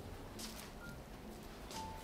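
Brief soft rustles of artificial pine branches as a string of fairy lights is wound around the tree, with a few short, thin high tones.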